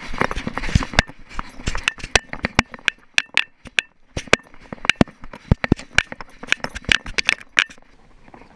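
Schipperke's metal collar tags clinking and jingling in quick irregular clicks as the dog trots and sniffs over rocky gravel, with paws scuffing stones. The clinking thins out near the end.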